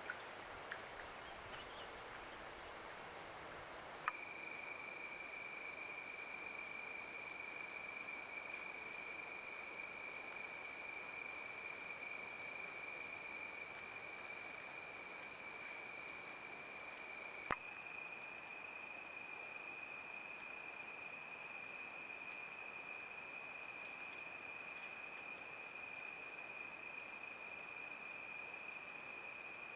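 Crickets trilling steadily at one high pitch in the night woods. Sharp clicks where the trail-camera clips change, about four seconds in and again a little past halfway.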